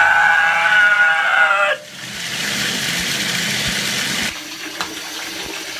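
Bathtub spout running a full stream into the tub: a steady rush of pouring water, louder from about two seconds in and dropping back to a lower rush a little past the middle. A held pitched note opens the first couple of seconds over the water.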